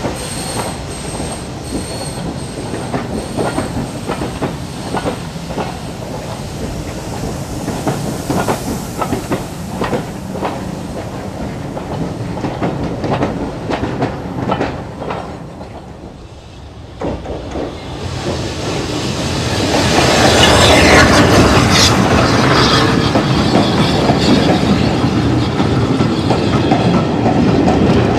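Railway coach wheels clicking over rail joints as a train runs below. About two-thirds of the way in the sound dips, then swells into a louder clatter as a train crosses the pointwork, with its wheels squealing for a few seconds.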